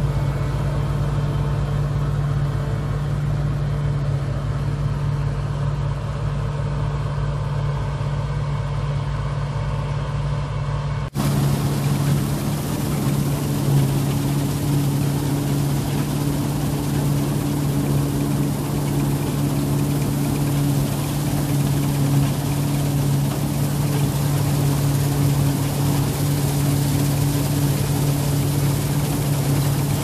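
New Holland TC56 combine harvester's diesel engine running steadily under load while harvesting wheat, a constant drone. About eleven seconds in the sound changes abruptly to a closer, hissier take heard from above the cutting header and reel.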